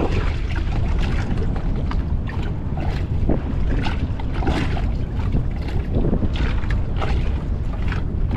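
Wind buffeting the microphone, with choppy waves slapping and splashing irregularly against a small boat's hull.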